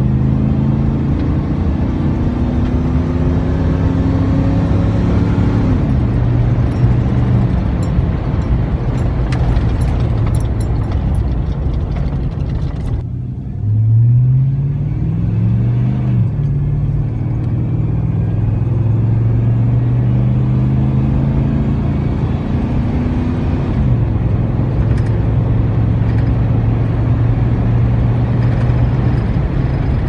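A 5.3L V8 pickup exhaust through a Cherry Bomb Glasspack, heard inside the cab under acceleration: the engine note climbs, then drops about six seconds in. About halfway through, the sound switches to the same truck through a Cherry Bomb Salute muffler. Its engine note rises quickly twice, with a dip between, then climbs steadily before easing to a steady cruise.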